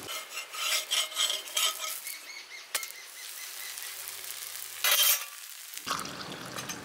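A metal ladle scraping and clinking in a steel bowl of raw banana dosa batter, then the soft sizzle of a dosa cooking on a hot iron tawa. A short loud burst of noise comes about five seconds in.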